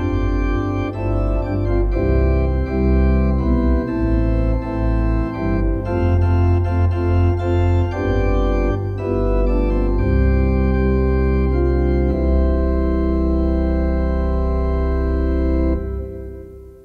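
Organ playing the closing bars of a hymn in sustained, changing chords, ending on a held chord that dies away near the end.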